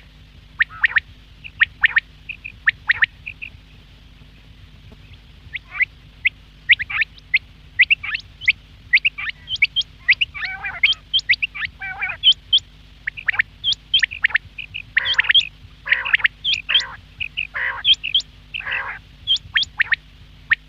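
Quails calling: many short, sharp notes in quick succession, joined in the second half by longer, lower, rougher calls, over a steady low hum.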